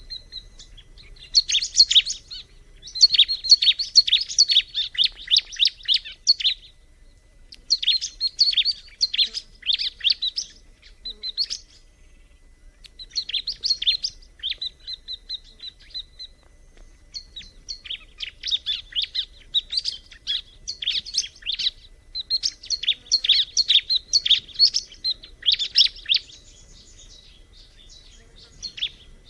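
A ciblek (bar-winged prinia) singing: bouts of rapid, high, chattering chirps, each a second to a few seconds long, broken by short pauses.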